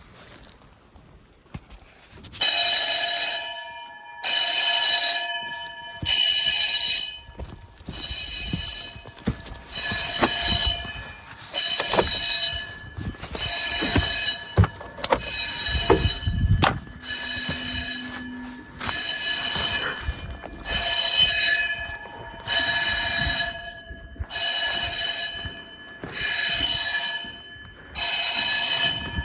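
Several electric fire alarm bells start ringing together about two seconds in. The fire alarm panel is in alarm after its manual call point has been pressed, and it pulses the bells in an even on–off pattern, about a second of ringing then a short pause, again and again. Fireworks bangs and crackles sound in between.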